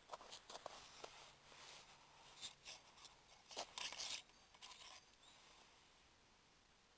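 Faint small clicks and scrapes of a metal camping alcohol burner and its windscreen being handled, dying away to near silence about five seconds in.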